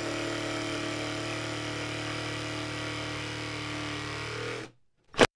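Milwaukee M12 cordless jig saw with a clean-cut blade cutting very hard batu hardwood, its motor running at a steady pitch while it is pushed hard into the slow cut. It stops abruptly near the end, followed by a single sharp click.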